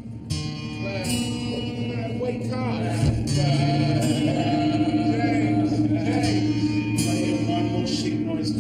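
Background music with a singing voice over sustained instrumental backing, swelling in the first second and then holding steady.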